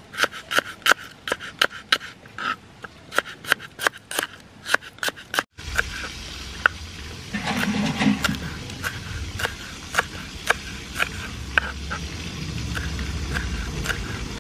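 Kitchen knife chopping shallots and then green chillies on a wooden cutting board: quick, even taps of the blade striking the board, about four a second, then slower taps after a short break about five seconds in.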